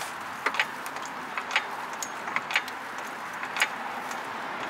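Scattered sharp clicks and light metallic knocks, about eight of them at uneven intervals, over a steady hiss, from a car jack and tools being handled.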